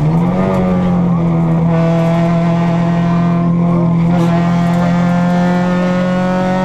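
Renault Clio 16v rally car's four-cylinder engine heard from inside the cockpit, running hard at high revs. The revs dip and climb back right at the start, then hold at a nearly steady high pitch.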